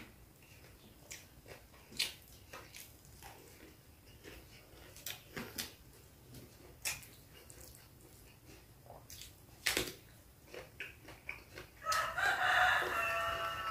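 Eating sounds with scattered sharp clicks and crunches as food is picked up and bitten. A rooster crows about twelve seconds in, the loudest sound here.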